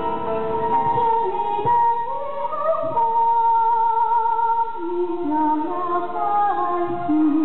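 Background music with a voice singing long held notes with vibrato, moving to a new pitch every second or two.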